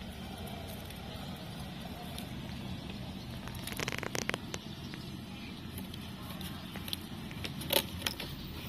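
Hamsters nibbling a crisp waffle biscuit held in the hand: small crunching clicks, a cluster about four seconds in and a few sharper ones near the end, over a steady low background rumble.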